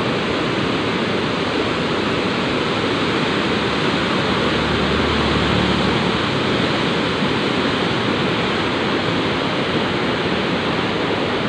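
White water of the river below Maria Cristina Falls, with the falls behind it, rushing with a steady, even noise.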